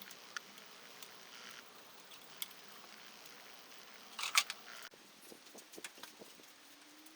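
Scattered light clicks and taps over a faint steady hiss, with a quick cluster of sharper clicks about four seconds in.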